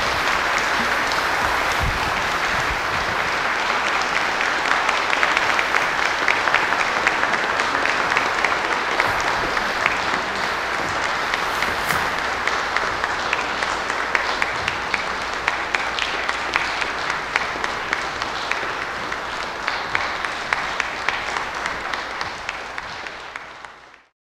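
Church audience applauding with steady, dense clapping that thins a little and then fades out near the end.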